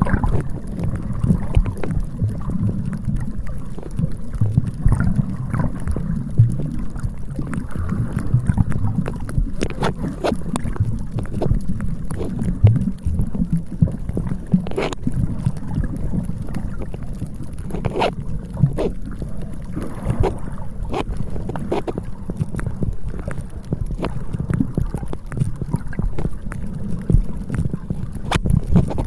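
Wind rumbling on the microphone with the sea washing on the beach, a steady low roar broken by a few sharp clicks.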